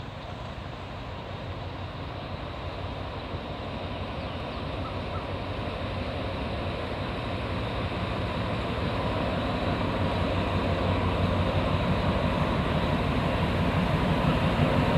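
Alsthom ADD-class diesel-electric locomotive's engine running as it approaches, growing steadily louder.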